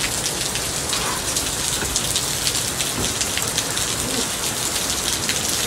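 Heavy rain pouring down onto pavement: a loud steady hiss thick with the sharp hits of individual drops.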